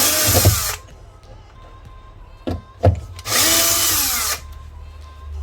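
Cordless drill driving a screw into a wooden cabinet in two short runs, the motor whine rising in pitch as each run starts. The first run stops under a second in; two sharp knocks come before the second run of about a second.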